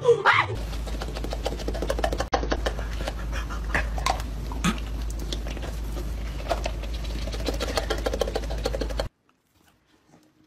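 A dog chewing and smacking its mouth: many fast wet clicks over a steady low hum, with a few short squeaky sounds, cut off abruptly about nine seconds in.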